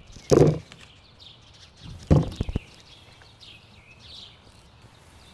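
Faint bird chirps in the background, broken by two loud knocks or thuds about two seconds apart, the second followed by a few lighter knocks.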